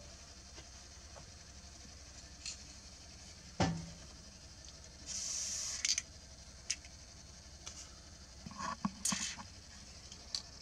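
Citroën 2CV windscreen wiper motor running on the bench with its cover off: a faint steady hum under scattered light clicks and scratchy ticks. A sharper knock comes about three and a half seconds in, a short hiss about five seconds in, and a quick run of clicks near the end.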